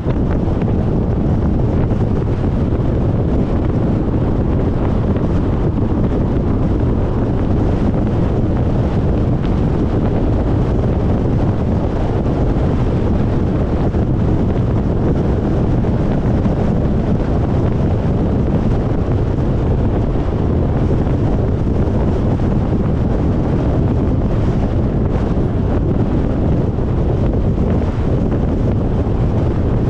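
Steady wind and road rumble from a car driving at highway speed, with wind buffeting the microphone.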